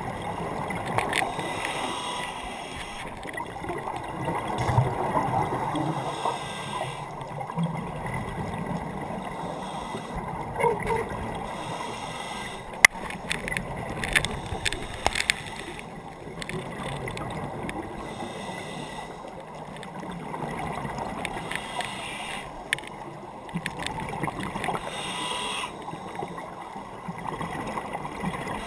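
Scuba divers' regulator breathing heard underwater: bursts of exhaled bubbles rushing and rumbling every few seconds over a steady low water noise, with a few sharp clicks about halfway through.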